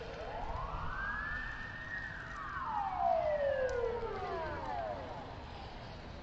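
Emergency vehicle siren wailing: it rises slowly in pitch, then falls away over about three seconds and fades out, over a steady low traffic rumble.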